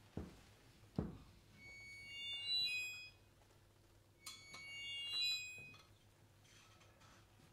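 Sparse contemporary music: scattered short, high-pitched tones over a quiet background, with a low thump right at the start, a louder one about a second in, and a sharp click a little past the middle.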